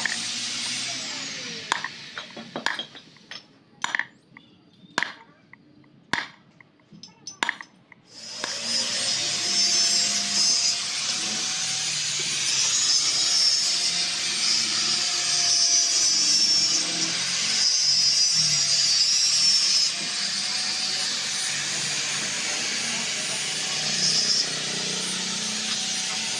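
A hammer driving a metal punch against a motorcycle clutch basket: about a dozen sharp, irregular strikes over the first eight seconds. After that comes a steady, louder rushing noise with a faint thin tone.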